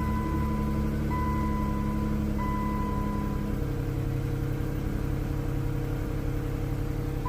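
Chrysler 200S's 3.6-litre Pentastar V6 idling just after being started. The engine note settles about halfway through. Three short high electronic chimes from the car sound about a second apart in the first few seconds, and one more at the very end.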